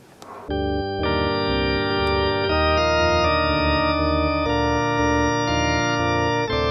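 Pipe organ played at full organ: loud, sustained chords over a pedal bass come in about half a second in. More high voices join a moment later, and the chords change every second or so.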